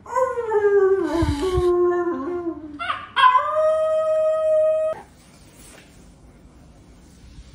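A person howls a long, falling howl, and a puppy then copies with its own high, steady howl lasting about two seconds. Both stop about five seconds in.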